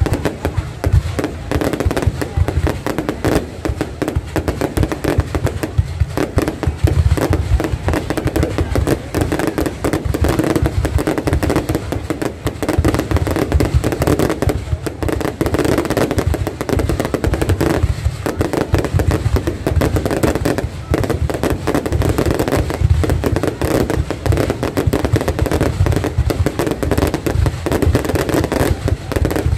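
Fireworks display: a continuous barrage of aerial shell bursts and crackling, many bangs a second with no let-up.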